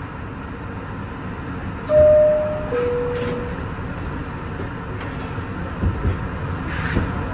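Two-note falling door chime of a Kawasaki R-62 subway car, a higher note then a lower one, over the steady hum of the car at a standstill. A few low thuds follow, typical of the doors closing.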